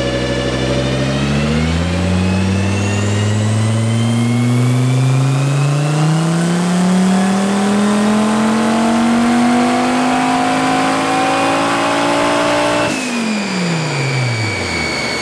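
Turbocharged VW 07K 2.5-litre five-cylinder in a Porsche 944, on a chassis dyno, making one long pull: the revs climb steadily for about eleven seconds with a high whine rising alongside. Then the throttle is shut and the revs fall away quickly near the end.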